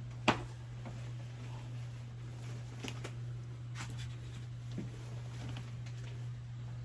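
Quiet room tone with a steady low hum, a sharp click just after the start, and a few faint taps and knocks later.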